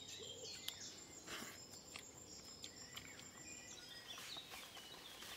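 Faint outdoor ambience of birds chirping in short falling calls, with a steady high insect tone that stops about two-thirds of the way through and a few light clicks.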